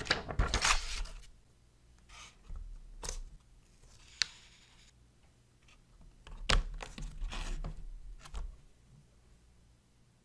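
Small white painting board handled and set down on a hard surface, giving a string of short scrapes and rustles with a few taps and a sharp click about four seconds in. The handling is loudest at the start and again about halfway through.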